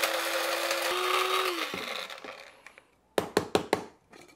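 Small electric blade spice grinder running on whole nutmeg and coriander seed: a steady motor hum that rises slightly in pitch about a second in, then cuts off and spins down. About five quick, sharp knocks follow near the end.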